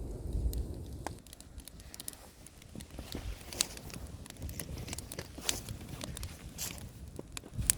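Wood fire crackling, with irregular sharp pops and snaps scattered through, most of them after about three seconds.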